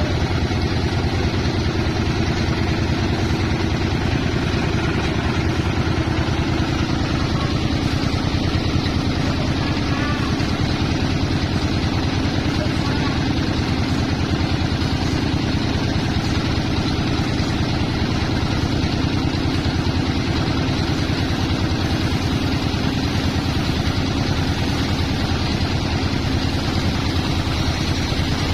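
A sawmill's drive engine running steadily, its low, fast, even pulse unchanged throughout.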